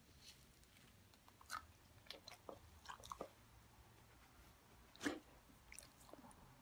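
A dog chewing on a toy: faint, irregular crunches and clicks, the loudest about five seconds in.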